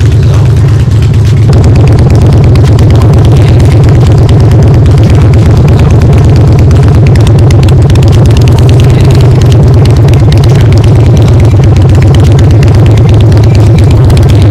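A 2007 Harley-Davidson Night Train's V-twin running steadily through Vance & Hines Big Radius pipes with the baffles removed, very loud, with a deep exhaust note. It gets a little fuller about a second and a half in.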